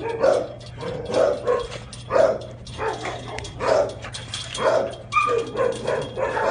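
Dogs barking in rough play through a fence: short barks about once a second, with a brief higher-pitched yelp a little past five seconds in.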